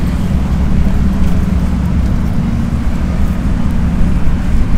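A nearby engine running steadily with a low hum over a constant low rumble.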